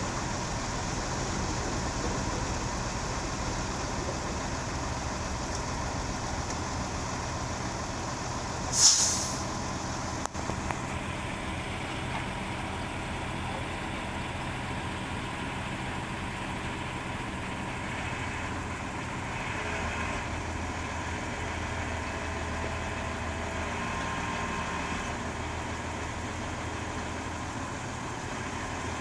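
Crane lorry's diesel engine running steadily, driving the crane. About nine seconds in there is one short, loud hiss of released air.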